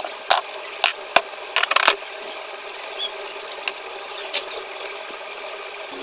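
Handling noise from tools and parts: several sharp clicks and knocks in the first two seconds, then a few lighter ticks over a steady hiss.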